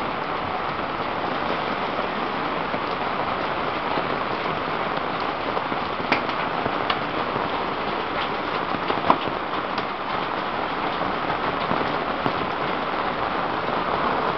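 Heavy rain falling steadily, pattering on corrugated iron roofing sheets, with a couple of sharper taps about six and nine seconds in.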